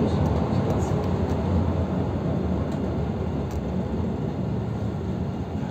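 Cabin noise inside a 2018 PAZ 320405-04 bus under way: the engine's steady low rumble mixed with road noise, easing slightly toward the end.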